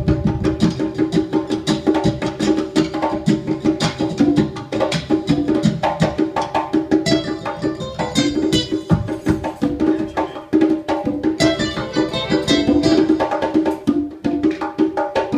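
Live music: a percussionist playing bongos and congas with a fast run of hand strokes, over a nylon-string classical guitar.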